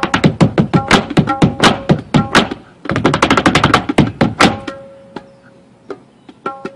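Tabla drumming, ringing strokes from the treble drum, trading with fast percussive taps of a dancer's hard-soled shoes on wooden decking. The fastest flurry comes about three seconds in. Everything stops at about four and a half seconds, leaving a few scattered taps, and the tabla comes back in just before the end.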